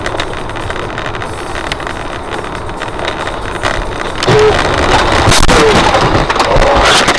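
Car interior on a wet highway: steady road noise, then about four seconds in a loud crash with repeated knocks and clatter as the car loses control.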